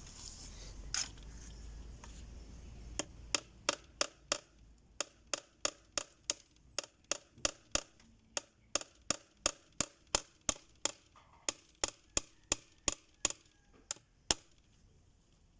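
Wood being chopped with a blade, a steady series of sharp strikes about three a second, beginning about three seconds in and stopping near the end.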